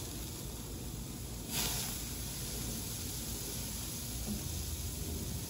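Pork belly sizzling on a barbecue grill, with a sudden burst of hissing about a second and a half in that fades within half a second, as basting sauce poured over the meat drips onto the hot fire.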